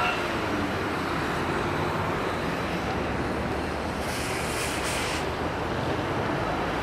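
Steady rushing wind noise on a camcorder microphone outdoors, with a brief swell of higher hiss about four seconds in.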